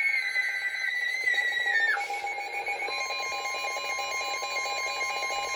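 Electronic emergency alert tones from a NOAA Weather Radio broadcast. A high held tone stops about two seconds in, and about a second later the steady tone near 1 kHz of the weather radio warning alarm begins. A rapidly pulsing alarm tone sounds underneath throughout.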